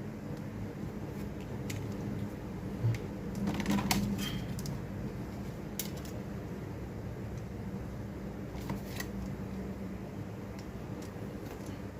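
Scattered light clicks and taps of small parts and tools being handled, over a steady low electrical hum.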